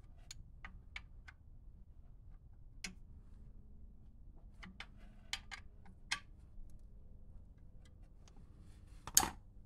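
Scattered sharp metallic clicks from a hand ratchet working the timing pointer bolts beside the crank pulley, about three a second at first, then single clicks. Near the end comes a short, louder clatter of tool against metal.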